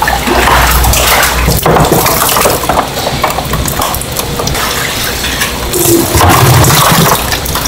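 Water splashing and sloshing as a dip net scoops live eels out of a holding tank and tips the wet, writhing mass into a plastic bucket.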